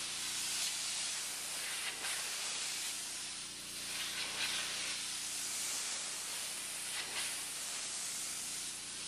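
Pressure washer spray hissing steadily as the jet blasts mold off a deck, swelling and easing as the wand sweeps across the surface.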